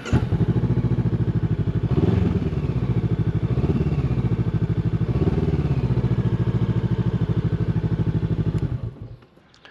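Honda NX500's parallel-twin engine starting and idling through an aftermarket Arrow Race Pro slip-on exhaust, with three brief rises in engine speed. It is switched off near the end.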